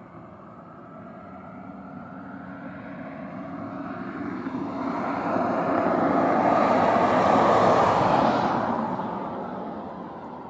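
A vehicle passing by. Its noise builds slowly to its loudest about seven seconds in, then fades away.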